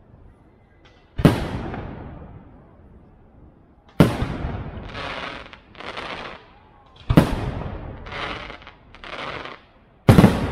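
Aerial firework shells bursting overhead: four sharp booms about three seconds apart, each trailing off. Between the booms come shorter, softer noisy bursts from the breaking stars.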